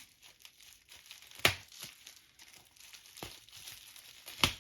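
Plastic bubble wrap crinkling as it is handled and pulled at to free it from its tape, with a steady scatter of small crackles and two sharp snaps, the second near the end.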